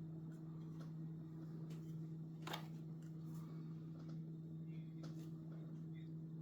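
Light clicks and taps of 3D-printed plastic parts being handled during model assembly, with one sharper click about two and a half seconds in, over a steady low hum.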